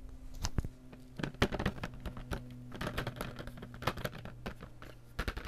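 Fingernails tapping and scratching on the cardboard box of a pack of Crayola Super Tips markers, in an irregular run of quick clicks.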